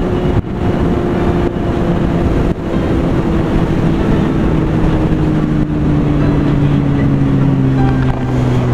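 Sport bike engine running at road speed under wind rush on the microphone, its note sinking slowly as the bike slows.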